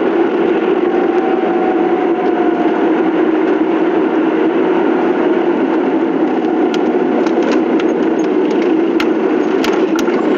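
Steady drone of a car being driven, heard from inside the cabin. A few sharp light clicks come near the end.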